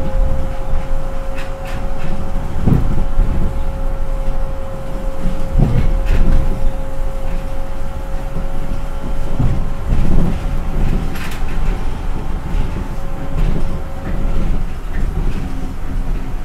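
Kobe New Transit 3000 series rubber-tyred automated people mover running, heard from inside the car with the windows open: a steady low rumble with occasional heavy thumps. Over it runs a steady whine that stops about fourteen seconds in.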